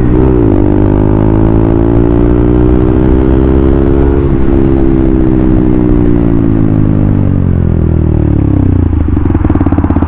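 KTM Duke 200's single-cylinder four-stroke engine running under way. Its pitch rises gently for the first few seconds, then falls steadily as the bike slows, settling into a low, uneven beat near the end as it comes off the throttle toward a stop.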